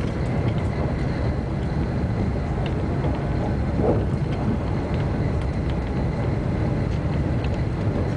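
Cabin noise of an AVE high-speed train at speed, heard inside the carriage: a steady, loud low rumble and rush of the running train. A brief higher-pitched sound rises over it about four seconds in.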